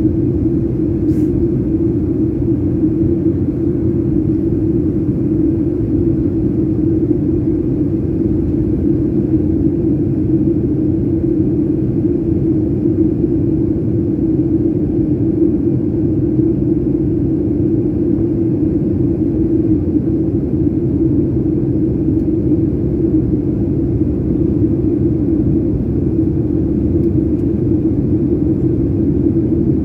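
Steady jet engine and airflow drone heard inside the cabin of a Gol Boeing 737 airliner in flight, an even, unbroken noise with a strong low hum.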